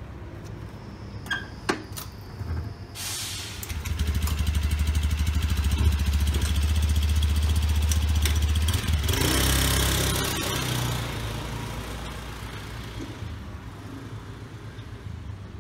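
Honda Scoopy scooter's single-cylinder four-stroke engine: a couple of clicks, then the engine runs steadily from about three seconds in, revs up around nine seconds as the scooter pulls away, and fades as it rides off.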